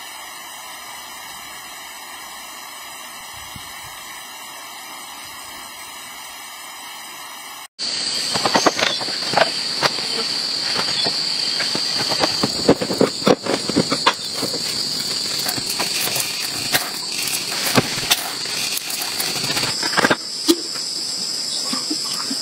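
A steady, even hiss for the first third, then after an abrupt cut a steady, high-pitched insect drone with irregular crackling rustles and steps through grass and brush.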